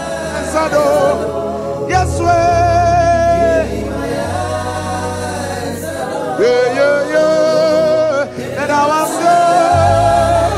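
Gospel worship singing: long sung notes with strong vibrato, phrase after phrase, over a bass accompaniment that drops out in the middle and returns near the end.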